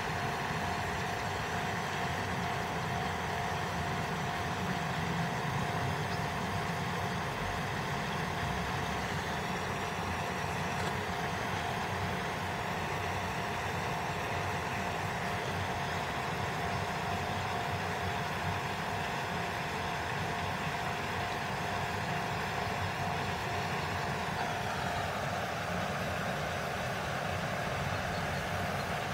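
Steady engine hum with a constant tone and a higher tone that drops slightly near the end.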